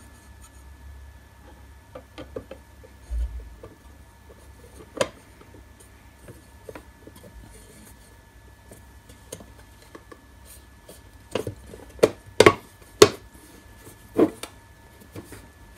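Clinks and knocks of an aluminium panel being handled and fitted onto an aluminium enclosure box. They are light and scattered at first, with a few sharper knocks near the end as the panel is pressed into place.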